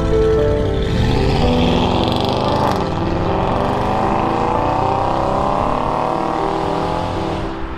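Audi RS6 Avant's twin-turbo V8 accelerating away, its engine note rising steadily in pitch and fading near the end as the car recedes.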